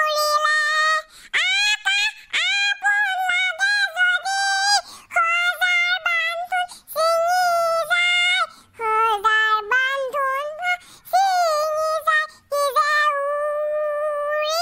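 A high-pitched cartoon boy's voice singing unaccompanied in short held phrases that glide and break, going over the same line of the song more than once.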